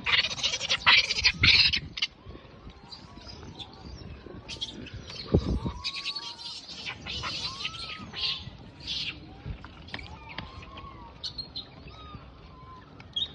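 A troop of wild macaques squealing and screeching in short, sharp, high-pitched calls. The calls are loudest and densest in the first two seconds, then thin out into scattered squeaks and chirps. A low dull thump comes about five seconds in.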